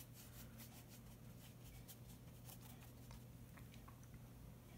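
Near silence: room tone with a steady low hum and faint scattered ticks of a watercolor brush working damp paper.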